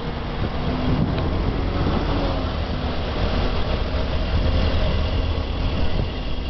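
Mercedes-Benz CLS 63 AMG's biturbo V8 idling with a steady low rumble while the car creeps at walking pace into a parking space.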